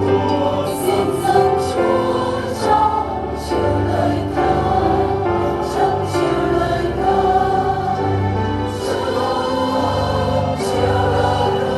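Choral music: a choir singing sustained, slowly changing chords over a steady bass line.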